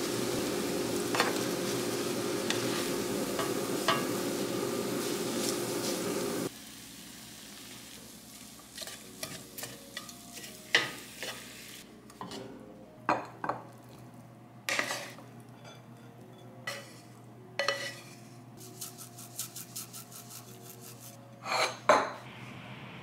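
Japchae noodles and rice sizzling in a frying pan while a wooden spatula stirs and scrapes them, with a steady hum underneath. About six seconds in the sizzle cuts off, leaving scattered knocks and scrapes, the loudest near the end.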